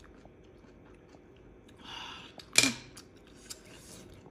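A person eating sea snails: a short hiss about two seconds in, then a loud sharp mouth sound, with quieter chewing.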